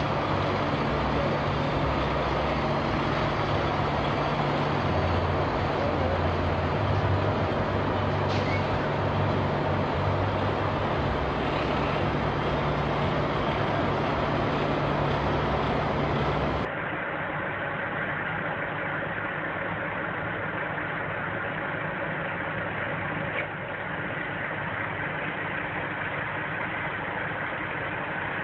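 Semi-truck diesel engine running at low speed while the tractor-trailer is manoeuvred, a steady low hum. About two-thirds of the way through it gives way abruptly to another truck's engine, quieter and duller.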